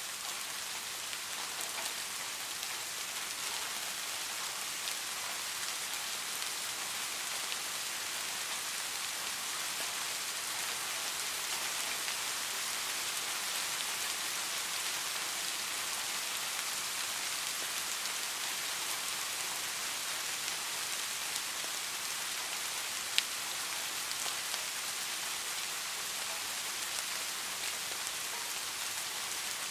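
Steady rain falling on a surface: an even rushing hiss dotted with the ticks of individual drops, one sharper drop tick about three-quarters of the way through.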